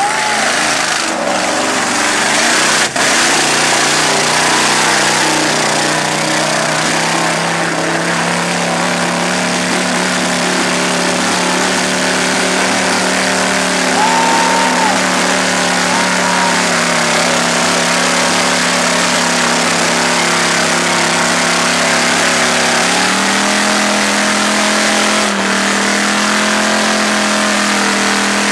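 Mud-bog truck engine running steadily at high revs as the truck churns through deep mud, its pitch stepping up about two-thirds of the way through.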